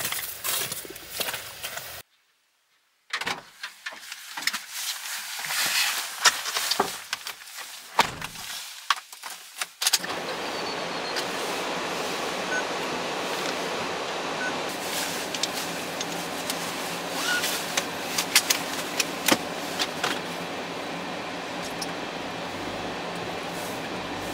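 Scattered clicks and knocks, with a short gap about two seconds in. From about ten seconds on, a Daihatsu kei van runs with a steady even noise heard inside the cabin, with a few light clicks over it.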